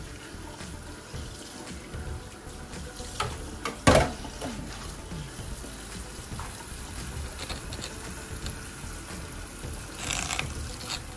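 Kitchen tap running into a stainless steel sink while hands rinse and turn shredded salad greens in a plastic colander. A brief sharp knock sounds about four seconds in.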